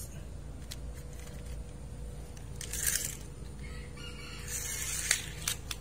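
Small plastic toy garbage truck being handled and pushed along a tiled floor: two short scraping rushes and a few light plastic clicks near the end.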